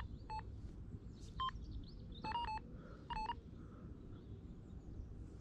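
Electronic carp bite alarm giving short single beeps at irregular intervals, with a quick run of three about two seconds in. The line is being twitched through the alarm by a fish taking the bait.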